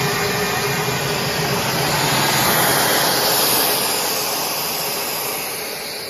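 Plastic hose extrusion line running: a steady mechanical rushing noise with a faint hum that grows quieter over the last two seconds.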